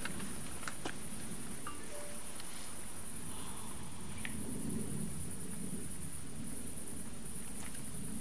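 Crickets chirping steadily, a continuous high shrill with a slight pulse. Beneath it runs a low, uneven background rumble, with a few small clicks.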